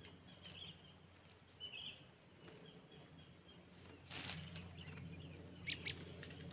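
Faint outdoor ambience with a steady low hum and a few short, faint bird chirps, then a brief rustle about four seconds in and two sharp clicks near the end.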